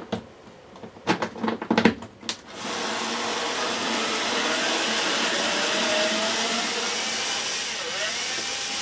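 A few clicks and knocks as a cordless power screwdriver's bit is seated in a screw. Then, from about two and a half seconds in, its motor runs steadily, undoing a hidden screw inside a Miele S8 vacuum cleaner's plastic housing.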